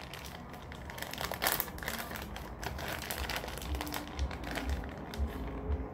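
Small plastic packet of shredded Monterey Jack cheese crinkling and crackling as it is squeezed and worked open by hand. A few dull bumps come in the second half.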